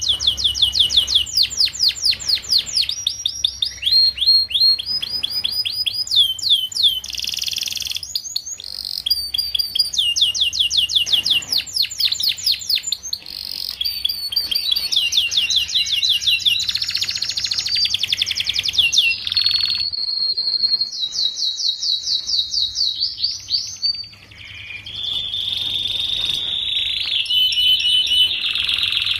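Young domestic canary singing: phrase after phrase of fast, rapidly repeated high-pitched trills and rolls, separated by brief gaps, with a lower, steadier trill near the end.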